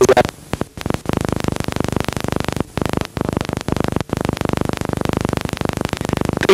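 Harsh buzzing static from damaged videotape playback: a dense, rapid crackle across all pitches, with a few short dropouts.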